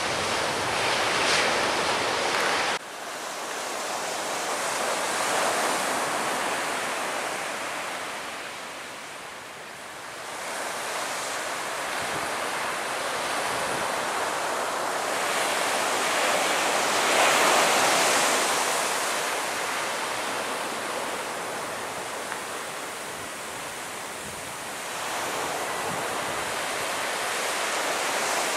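Surf breaking on the beach and wind on the microphone: a steady rush that swells and fades, cut off abruptly about three seconds in and picking up again.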